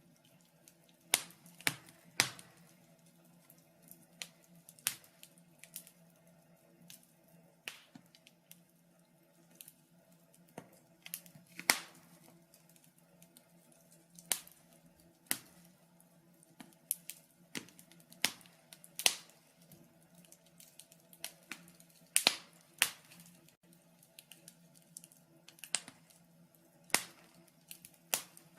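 Wood fire in a fireplace crackling: irregular sharp pops and snaps at uneven intervals, a few much louder than the rest, over a faint steady low hum.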